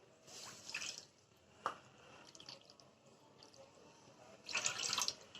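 Water being poured into a pan of sugar, heard as faint drips and trickling, with a small sharp click about a second and a half in and a louder spell of pouring near the end.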